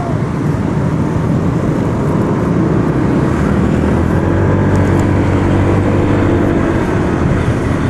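Honda PCX 150 scooter's 150 cc single-cylinder engine running steadily, with a dense, constant rumbling noise around it.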